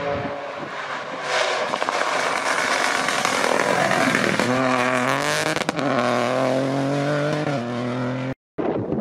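Rally car going by flat out, first a loud rush of engine and tyre noise, then an engine note that climbs and drops back twice as it shifts up through the gears. A cut near the end brings in another car's engine.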